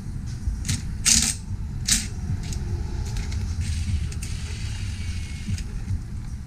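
Metal hand tools clinking and scraping on the car's underside as the transmission fluid drain is opened: three sharp clinks in the first two seconds, the loudest about a second in, then softer scraping and a faint hiss.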